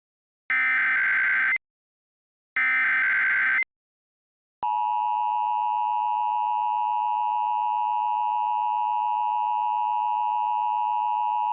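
Emergency Alert System signal. Two one-second bursts of screeching digital SAME header data, a second apart, are followed about four and a half seconds in by the steady, piercing EAS attention tone that announces an alert.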